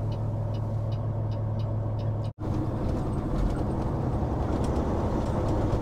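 Caterpillar C15 diesel of a Peterbilt 389 truck idling with a steady low hum, with faint regular ticking. About two seconds in the sound cuts abruptly, and afterwards the truck is under way, its engine mixed with more road noise.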